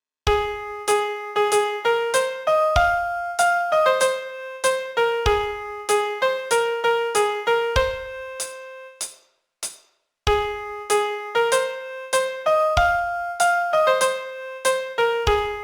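Piano playing a song's vocal melody one note at a time, each note struck and left to ring. The notes break off for about a second around nine seconds in, then the melody starts again.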